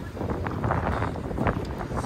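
Wind buffeting the microphone, giving an uneven low rumble with short gusty flutters.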